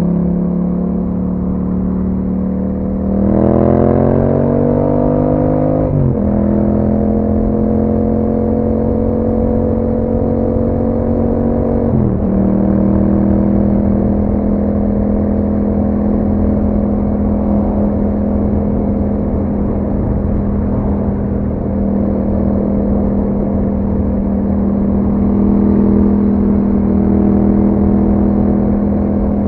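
2021 Yamaha MT-07's parallel-twin engine through an aftermarket Akrapovic exhaust, under way. It revs up about three seconds in, and its pitch drops sharply twice, around six and twelve seconds in, as it shifts up through the gears. It then holds a steady cruise, lifting slightly near the end.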